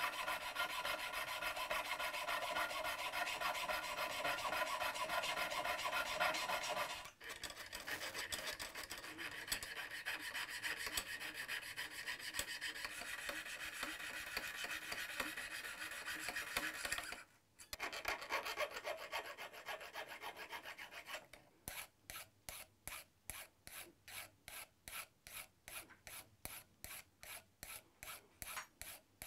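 Jeweller's saw with a fine-toothed blade cutting through a small metal tube, a quick, steady rasp of short strokes. Later the strokes slow to separate rasps, about two or three a second, and fade as the cut nears completion.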